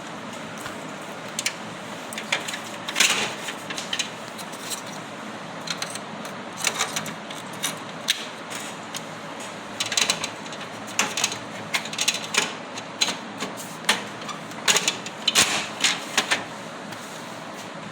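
HP LaserJet 3035/3005 printer running with a steady hum and irregular sharp clicking and clacking, the noise problem the printer has.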